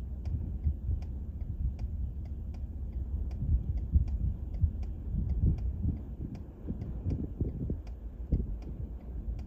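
Wind gusting on the microphone as a low, uneven rumble, with a steady mechanical ticking of nearly three ticks a second.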